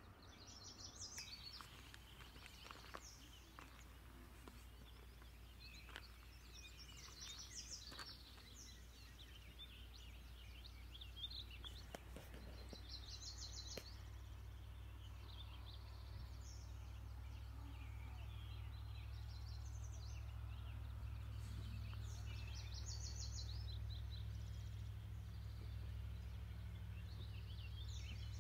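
Wild songbirds chirping and singing, with short rapid trills every few seconds, over a faint low steady rumble that grows a little louder in the second half.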